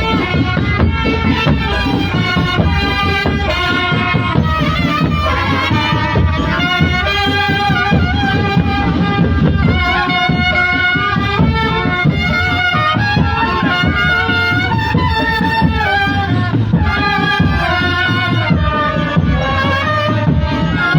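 Drum band playing a tune: a melody of held notes over busy drumming.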